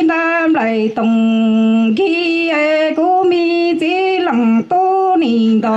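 A solo voice singing Hmong kwv txhiaj sung poetry, unaccompanied, in long held notes joined by slides in pitch, with short breaks between phrases.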